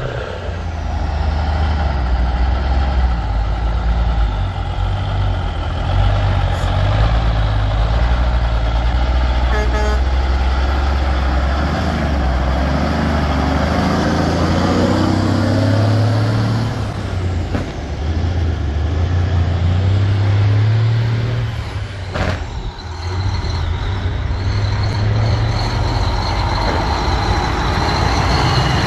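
Heavy diesel trucks pulling away one after another, engines running under load and rising in pitch as they accelerate through the gears. A short sharp hiss of air comes about two-thirds of the way through.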